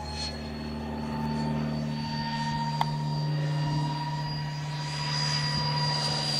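Twin electric ducted fans of a Freewing Su-35S RC jet model whining in flight: a steady high whine whose pitch creeps up over the first couple of seconds, then holds. A single sharp click comes about three seconds in.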